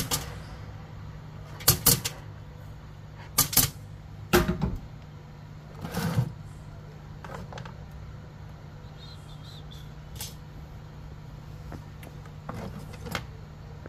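Sharp clicks and knocks, several in quick pairs, as metal BGA reballing stencils and small tools are handled and set down on a repair bench, over a steady low hum.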